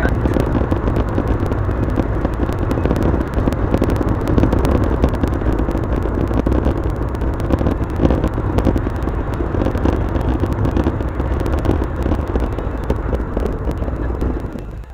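Car road and engine noise inside the cabin, picked up by a dashcam and played back many times faster than real time, so it comes through as a steady rumble broken by many small clicks.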